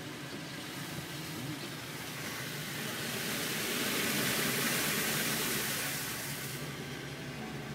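Car driving on a wet road, heard from inside the cabin: a steady low engine and road hum, with a hiss of tyres on water that swells for a few seconds in the middle and fades away.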